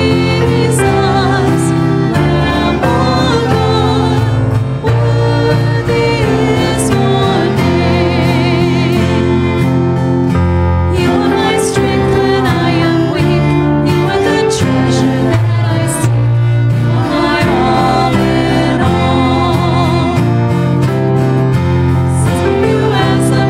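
Live worship music: two women singing a slow worship song into microphones, with two violins playing sustained, wavering notes over a steady low bass line.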